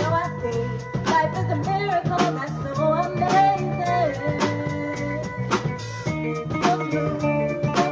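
Live band playing a groove without lyrics: guitar over a drum kit keeping a steady beat.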